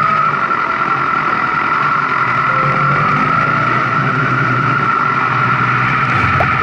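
Motorcycle riding at a steady speed: engine running under a steady rush of wind and road noise.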